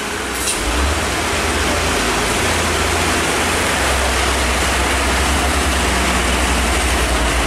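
Steady hiss of heavy rain and tyres on a wet road, with the low rumble of truck and car engines climbing the hairpin bend underneath.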